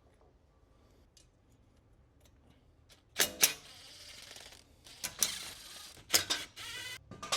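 A few sharp metallic knocks, then several short bursts of rapid ratchet clicking as a screw is run back in by hand tool.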